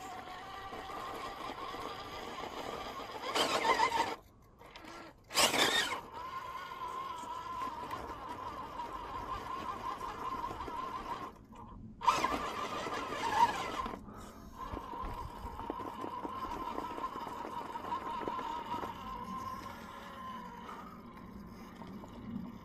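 Small RC rock crawler's electric motor and gears whining steadily as it crawls a rock line. The whine stops twice for about a second, and there are three short louder surges of noise as the throttle and load change.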